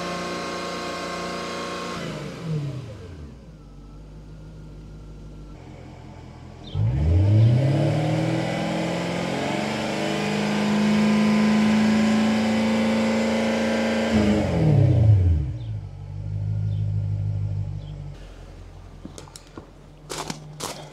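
1996 Jaguar XK8's 4.0-litre V8 through an Adamesh Stage 1 exhaust, heard at the tailpipe during a stationary noise test. It falls from raised revs to idle about two seconds in, is revved up sharply about seven seconds in and held steady for about seven seconds, then drops back to idle. Footsteps crunch on gravel near the end.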